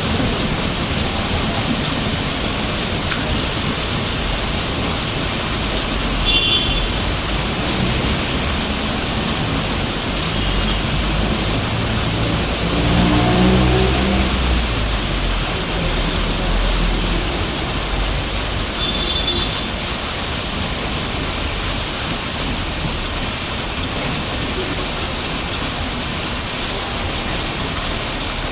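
Heavy rain hissing steadily while an express train runs through, with a low rumble throughout; a pitched drone swells and fades about halfway through.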